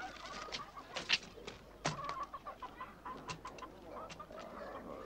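Chickens clucking in short, irregular calls, mixed with a scatter of sharp clicks and knocks.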